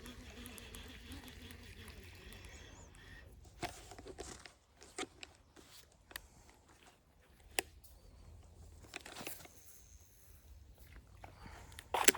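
Close rustling and crunching with scattered sharp clicks, the loudest a crackle near the end.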